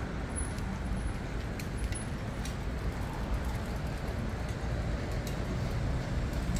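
Street ambience at a city intersection: a steady low rumble of road traffic, with a few faint light ticks.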